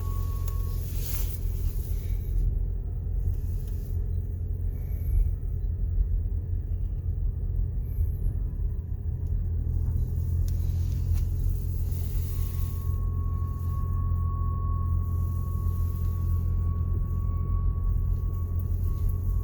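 2019 Toyota RAV4 Hybrid creeping at very low speed with a steady low rumble; about twelve seconds in a thin, steady high-pitched tone comes in and holds. This is the noise the owner gets when turning the wheel gently left at very low speed, mostly in the first minutes after a cold start.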